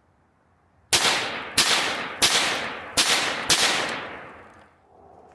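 Five gunshots from a pistol-caliber sub-gun, fired singly at a steady pace well under a second apart, each followed by a long echoing tail that dies away after the last shot.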